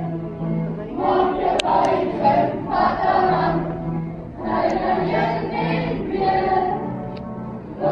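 A group of voices singing a folk song in phrases over a held low accompanying note, music for volkspele, Afrikaans folk dancing.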